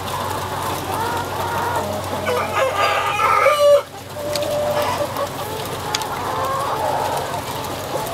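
A large flock of broiler breeder chickens clucking and calling over one another, with one rooster crowing loudly for about a second and a half near the middle, cut off suddenly.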